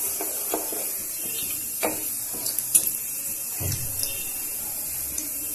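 Cumin seeds sizzling in hot oil in a kadhai for a tadka: a steady high hiss, with a few light clicks and scrapes of the spatula against the pan and a dull knock a little past halfway.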